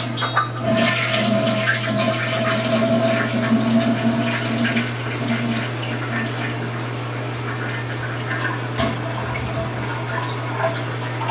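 Toilet flushing: a loud rush of water for the first few seconds, then quieter running water as it continues, over a steady low hum.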